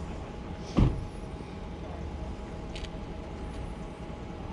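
Steady low rumble of motor vehicles, with one sharp thump just under a second in and a faint click near the end.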